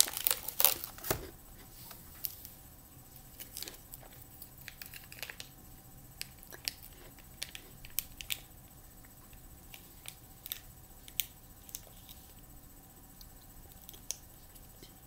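Plastic wrapper crinkling for about the first second, then scattered small clicks and taps from a plastic clamshell container of small tomatoes being handled.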